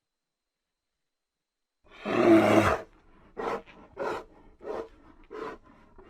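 A bear roaring once, then a run of shorter growls repeating about every two-thirds of a second. The sound starts about two seconds in, after silence.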